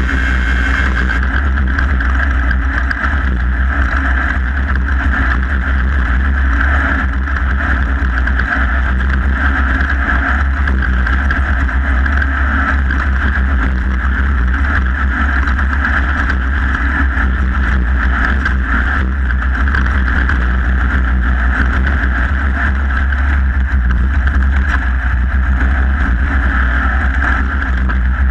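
Off-road race vehicle at speed: steady engine and drivetrain noise mixed with wind and rattling, unbroken throughout.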